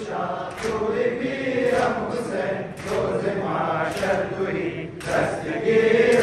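A noha mourning lament chanted by men's voices, with a crowd of mourners beating their chests in unison (matam): sharp slaps land together about once a second under the chant.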